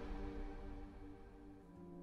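Soft background music: held notes fading away, with a new low note coming in near the end.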